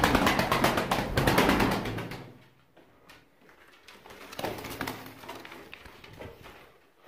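White Erzurum domestic pigeons cooing in a small loft, with a burst of rapid rustling and wing flapping in the first two seconds. Softer cooing returns after a short lull.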